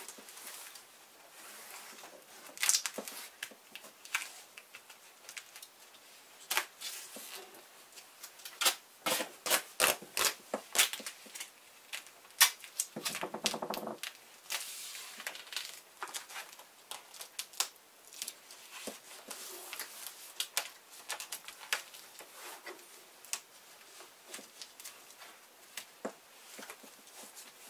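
Tape being worked around a window air conditioner: irregular clicks, taps and rustles as strips are handled and pressed onto the wood and cardboard, with one rasping rip of tape pulled off the roll about halfway through.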